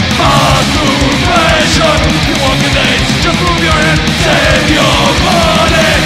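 Heavy metal band playing live: fast, dense drumming under distorted electric guitars, at full volume.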